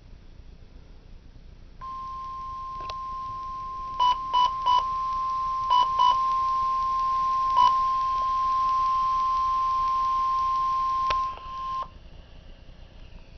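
NOAA Weather Radio warning alarm tone: a steady single tone near 1 kHz, held for about ten seconds out of faint radio hiss, which alerts weather-radio receivers to an incoming warning or watch. Six short, higher beeps overlap it in its first half, and it cuts off about a second before the end.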